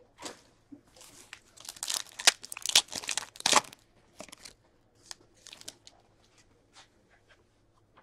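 Foil wrapper of an Upper Deck Artifacts hockey card pack being torn open and crinkled in the hands, loud and crackly for the first three and a half seconds, followed by fainter scattered crinkles and clicks.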